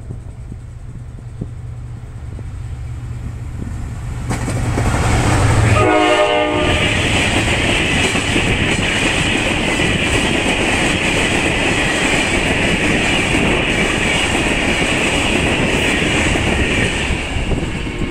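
Passenger train running through at speed: a low rumble grows as it approaches, and a short horn blast sounds as the locomotive passes about six seconds in. Then a loud, steady rush and clatter of wheels on rails follows as the coaches go by, easing off near the end.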